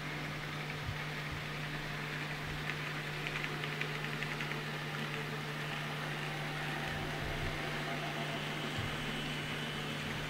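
N scale model trains running on the layout: a steady low motor hum with a light clicking of wheels over the track, a short run of clicks about three to four seconds in.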